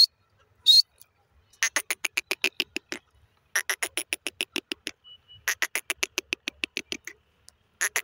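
Francolin (teetar) calling: two short, high whistled notes in the first second, then runs of rapid pulsed notes, about nine a second, each run lasting about a second and a half with short gaps between them.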